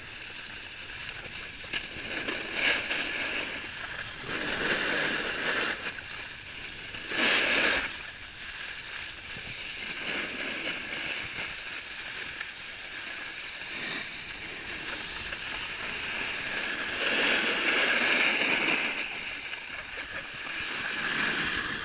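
Edges sliding and scraping across groomed snow on a downhill run, a steady hiss that swells with each turn, loudest about seven seconds in and again near the end.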